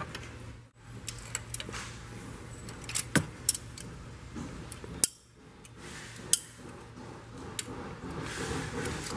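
Metal hand tools and parts clicking and clinking against the engine's cylinder head and camshafts, as the camshafts are turned and locked for timing. There are a few sharper knocks about three, five and six seconds in.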